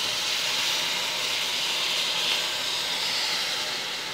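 Chicken fillets in a hot frying pan sizzling with a steady hiss of steam as water is poured in, which loosens the browned residue stuck to the pan.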